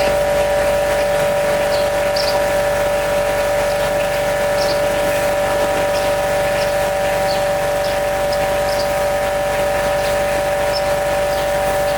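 Pressure washer running steadily, with a constant machine whine that holds one pitch throughout.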